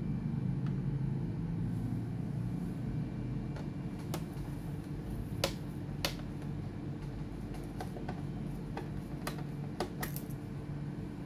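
Scattered sharp clicks and taps of tools and small parts against a laptop's plastic case, a few louder than the rest, over a steady low hum.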